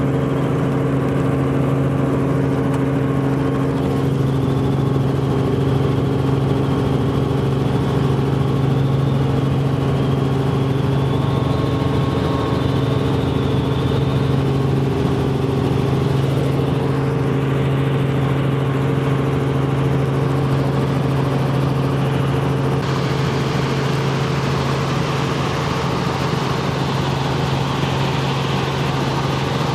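Helicopter in flight heard from inside the cabin: a steady, loud drone of engine and rotor.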